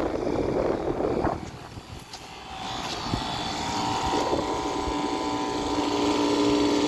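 Outdoor air-conditioner condenser unit running: a steady hum with a strong low tone and several higher ones, growing louder from about three seconds in. The first second holds rough rushing noise that fades out.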